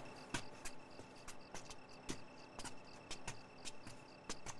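Crickets chirping steadily in a pulsing pattern, with a string of sharp, irregular footfalls on stone steps as people walk down a stairway.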